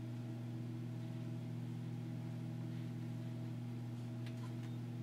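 Steady low hum with several overtones, unchanging room tone in a pause with no speech, with a few faint ticks about four seconds in.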